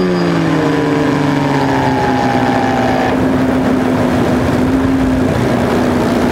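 Electric motor and propeller of an FPV glider spinning down as the throttle is cut: the motor whine falls steadily in pitch over about three seconds. After that a steady rush of air carries on as the glider glides with the motor off, with a faint steady hum.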